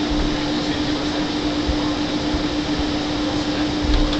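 Steady cabin noise of a Boeing 747-400 taxiing: an even rush of engine and air-conditioning noise with one constant hum, and a few brief low thumps, about a second in and again near the end.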